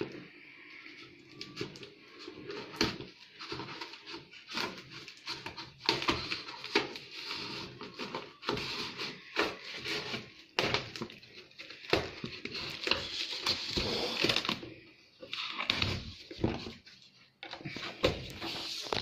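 Packing tape being cut and peeled off a cardboard carton, with the flaps handled: repeated scratchy tearing and scraping, broken by many small clicks and knocks, busiest in the middle stretch.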